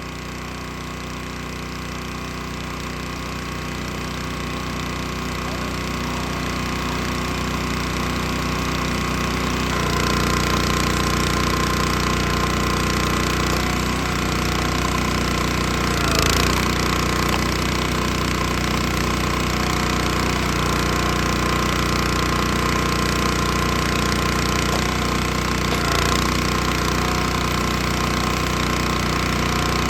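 Small gas engine of a log splitter running steadily. It grows louder over the first ten seconds, then holds level, with brief swells about halfway through and again near the end.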